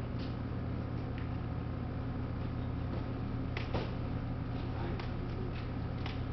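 Steady low hum of a store checkout area with scattered light clicks and knocks, the loudest pair about three and a half seconds in, as items are handled at the register.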